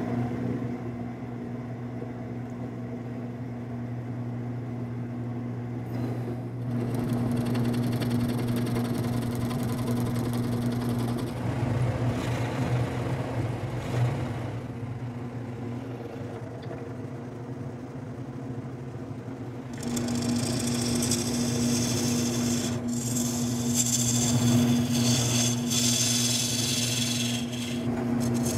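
Wood lathe running with a steady motor hum, while a hollowing tool cuts into the spinning almond-root blank in stretches, a rough scraping hiss of shavings coming off the wood from about six seconds in to eleven, and again from about twenty seconds in.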